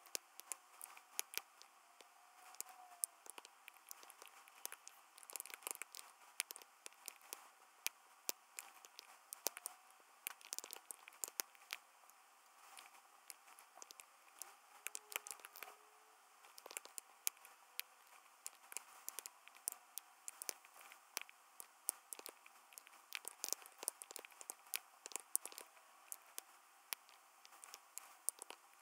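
Typing on a computer keyboard: quick, irregular key clicks in runs with short pauses as code is entered.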